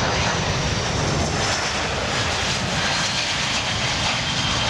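Boeing C-17 Globemaster III's four turbofan jet engines: a steady, loud jet noise.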